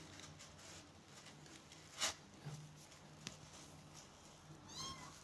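Mostly quiet room with a brief rustle about two seconds in and a tick a little later, then one short, high kitten mew near the end.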